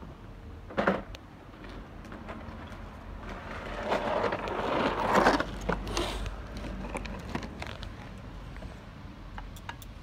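Handling and rustling noises with scattered clicks: a sharp knock about a second in, then a louder rustling swell of about two seconds near the middle.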